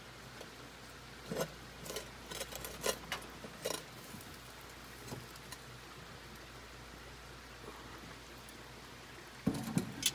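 Metal lid lifter working the lid of a cast iron Dutch oven: a scattering of sharp clinks and knocks of metal on cast iron in the first few seconds, then a louder clatter near the end as the heavy lid comes off and is set down on the grill grate.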